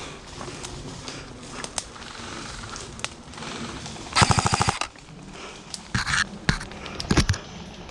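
Airsoft gun firing a rapid full-auto burst of about half a second, roughly four seconds in, followed by a few single cracks near the end.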